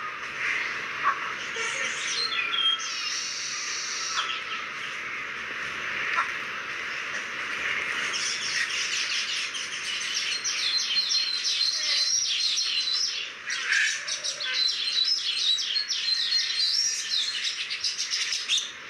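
Many small birds chirping and trilling busily, with short repeated whistled notes, over a steady hiss.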